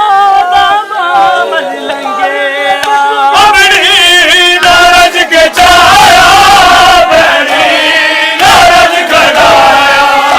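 Men chanting a nauha, a Shia mourning lament, loud and continuous, with more voices joining in about three seconds in.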